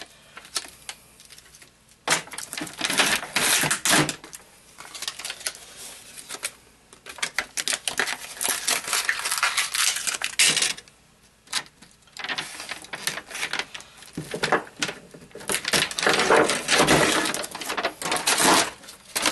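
Thin metal foil shielding crinkling and tearing as it is peeled by hand off the back of an LCD panel, in several stretches of dense crackling with short pauses between.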